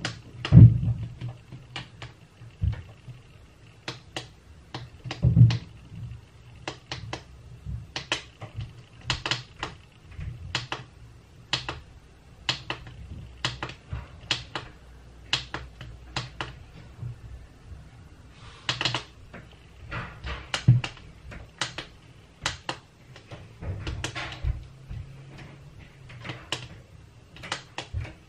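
Sharp clicks and taps, roughly one a second and irregular, as buttons or keys are pressed, over a low steady hum.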